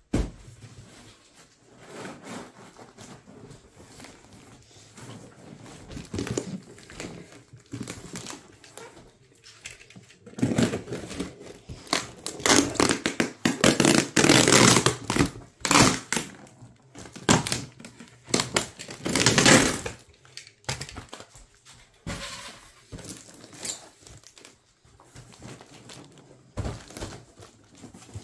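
Clear plastic stretch wrap on a parcel being slit with a utility knife and torn and peeled away, crinkling and rustling. The tearing is loudest and densest between about ten and twenty seconds in. There is a single knock at the very start.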